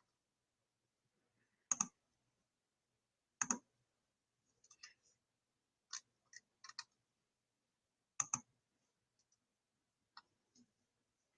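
Computer mouse clicking: single sharp clicks every second or two, some in quick pairs, with quiet in between.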